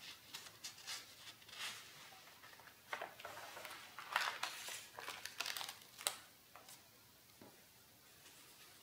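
Sketchbook paper pages rustling and crinkling as they are turned by hand, in irregular bursts with short sharp crackles. The rustling is busiest in the middle, ends with a sharp crackle about six seconds in, and then dies away.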